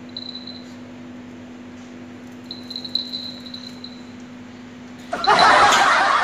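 Faint, thin high-pitched squeaks twice in the first four seconds over a steady low hum, then loud human laughter breaks out about five seconds in.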